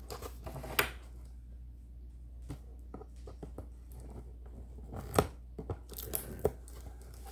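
Packaging being opened by hand: tearing and crinkling, with a few sharp snaps and knocks, the loudest about five seconds in.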